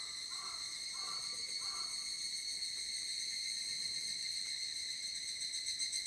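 Higurashi (evening cicadas, Tanna japonensis) calling, a steady high-pitched ringing drone. Four short, lower notes sound about half a second apart in the first two seconds.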